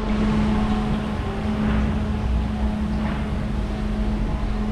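Steady machine hum with a constant tone over a low rumble.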